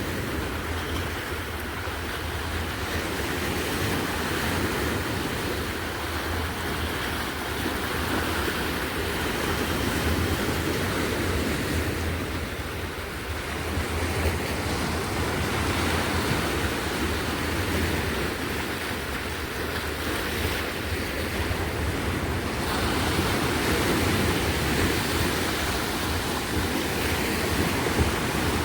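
Sea waves washing onto the shore in a continuous surf that swells and eases slowly, with a low rumble of wind on the microphone.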